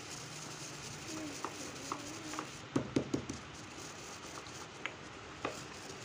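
Stone pestle grinding carom seeds (ajwain) in a stone mortar: scattered knocks and scrapes, with a quick cluster of louder knocks about three seconds in and two more sharp taps near the end.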